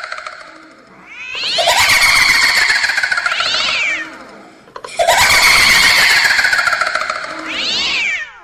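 Horror sound effect of a cat-like screeching wail, given twice. Each cry slides down in pitch over a few seconds and ends in a short rising shriek.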